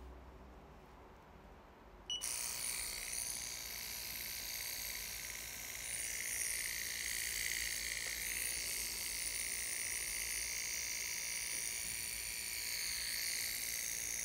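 Wireless rotary pen tattoo machine switched on about two seconds in and running with a steady buzz, powered from a tattoo power supply through its cord.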